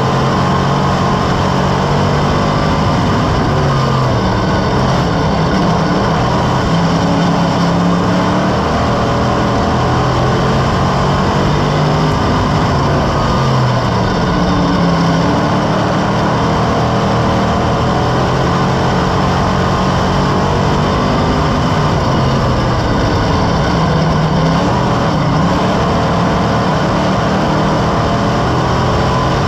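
Dirt sportsman modified race car's V8 engine running at racing speed, heard loud from inside the car; the engine note dips and climbs again every few seconds as the throttle comes off and back on.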